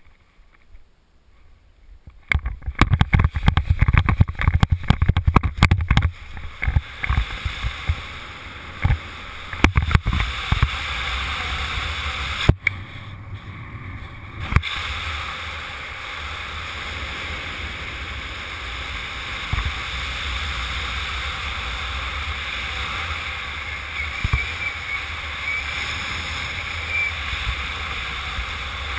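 Wind rushing over a camera microphone in speed-flying flight. It starts quiet, then from about two seconds in there are several seconds of heavy thumping and buffeting during the running launch, and it settles into a steady rush of airflow.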